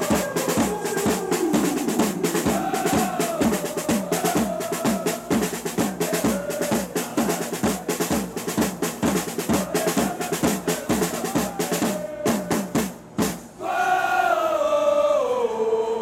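Football supporters' drum section, a strapped snare drum and large bass drums struck with felt mallets, beating a fast, steady rhythm under a crowd's sung chant. The drums stop about 13 seconds in, and the massed voices carry on alone in a long, falling line.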